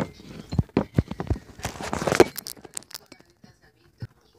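A series of sharp knocks and bumps, then a brief rustle about two seconds in, followed by only a few faint ticks.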